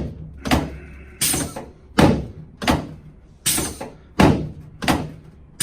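Sharp, even thumps from a chiropractic adjusting device, about one every 0.7 seconds, over a faint steady hum. The device has just been set to a lower force.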